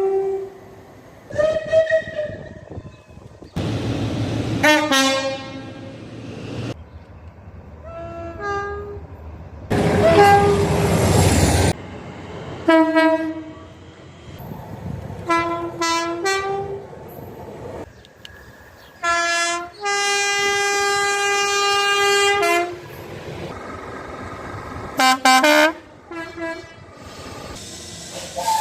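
A string of train horn blasts from different British trains, cut abruptly one after another. Most are two-tone horns sounding a low and a high note in turn, with one blast held for about three seconds in the second half. Twice the loud rushing noise of a train passing at speed runs under the horns.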